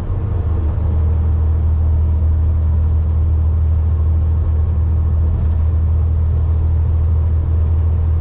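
Steady low drone of a semi truck's diesel engine and road noise, heard inside the cab while cruising at highway speed.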